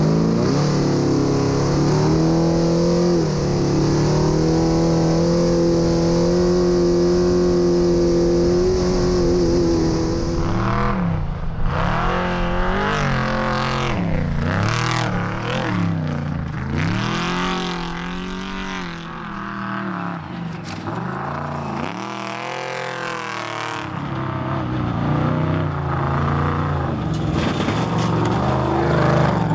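Trophy Truck engine running hard at a steady high pitch for about ten seconds, then repeatedly rising and falling as the throttle comes on and off over the desert course.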